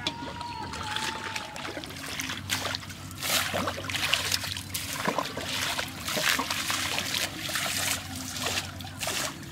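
Water being bailed out of a shallow muddy canal with a metal plate: repeated scoops and splashes as water is flung out and lands, starting about two seconds in.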